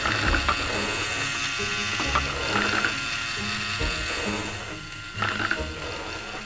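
Plastic LEGO Technic gears and lift mechanisms of a ball-run machine ticking and whirring steadily, with a few louder clattering clicks as parts or balls knock along the plastic ramps.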